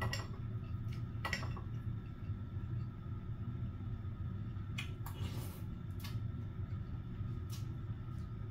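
A few brief clicks and scrapes of eating utensils against a bowl during a hotpot meal, over a steady low hum.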